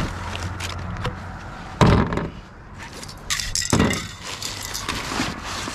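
Rubbish being rummaged by hand in a wheelie bin: two loud knocks of hard items being shifted, about two seconds apart, with clinking and the crinkle of plastic bags.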